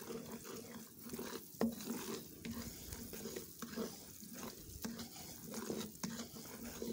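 Gram flour (besan) frying in ghee in a wok, sizzling as a wooden spoon stirs it and scrapes across the pan bottom in steady strokes, about two a second. The besan is being roasted on a low flame, stirred continuously so it does not stick.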